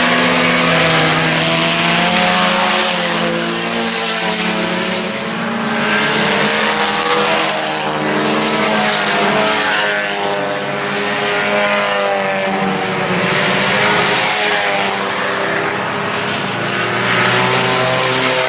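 A pack of IMCA Sport Compact race cars, four-cylinder front-wheel-drive compacts, racing at full throttle: several engines at once, their pitch rising and falling as they lift and accelerate around the track.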